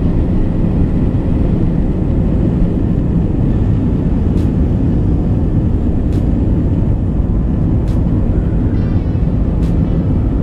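Airliner jet engines at takeoff power, heard from inside the cabin: a steady, loud, low rumble through the takeoff roll and liftoff. Faint ticks come at even spacing, about every second and three-quarters.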